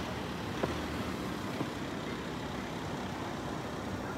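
City street traffic: a steady rumble of motor vehicles running past, with a short sharp click about half a second in.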